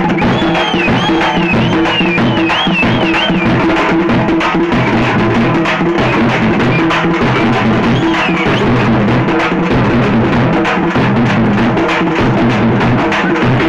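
Large stick-beaten bass drums of a street band, pounded in a fast, dense rhythm, with steady sustained tones underneath. High wavering tones warble over the top in the first few seconds and again briefly around eight seconds in.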